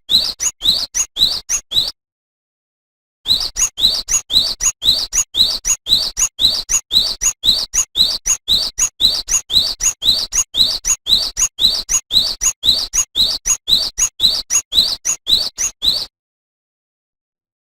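Cinereous tit (gelatik batu) singing a fast, even run of short, rising 'tulit' notes, about four to five a second. The song breaks off briefly about two seconds in and stops abruptly about two seconds before the end.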